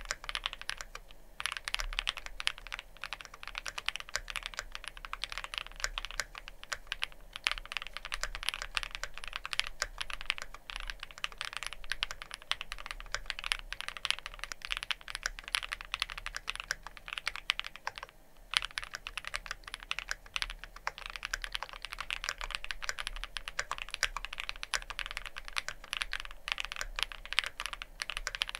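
Fast, steady typing on a Wuque Studio Freya Ultra spring- and gasket-mounted custom mechanical keyboard with factory-lubed Cupid linear switches and GMK Tenshi keycaps. Keystrokes come in a dense run, with a short pause about a second in and another just past the middle.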